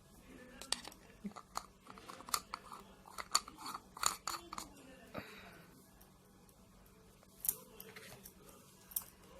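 Small sharp clicks and crackles of hands handling small objects: a quick irregular run of them over the first five seconds, then two single clicks near the end.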